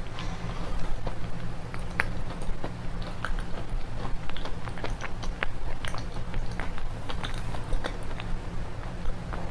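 Close-up biting and chewing of red slate pencils, the brittle baked clay cracking and crunching in many sharp, irregular snaps.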